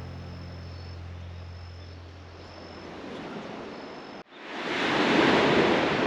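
The tail of background music fades into a faint steady hiss. After a sudden cut about four seconds in, sea waves surge loudly against the shore.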